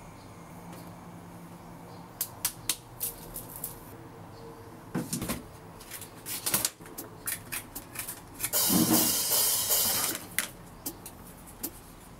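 Small objects being handled on a desk: scattered light clicks and taps, and a plastic packet rustling and crinkling for about two seconds starting around eight and a half seconds in.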